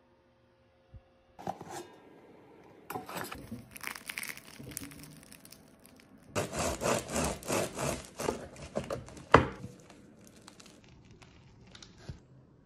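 Crusty bread loaf handled and then sawn through with a bread knife. First comes lighter crackling and rubbing of the crust, then a loud run of rasping, crackling knife strokes, about three a second for about three seconds.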